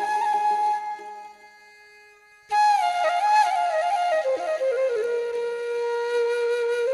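Background flute music: a held note fades out about a second in, and after a short pause the melody comes back, stepping down to a long, lower held note.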